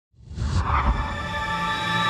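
Electronic TV-station ident music fading in from silence, with low pulsing bass and a brief high whoosh about half a second in, then a held chord swelling as the station logo builds.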